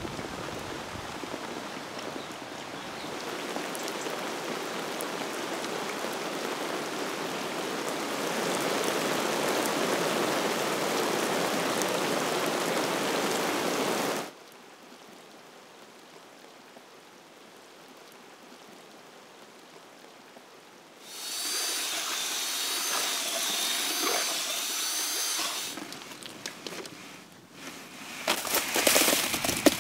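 Water pouring from a pipe into a lined pond, a steady splashing that grows louder and then cuts off about halfway through. Near the end, wet concrete tipped from a plastic bucket, a burst of crackling and scraping.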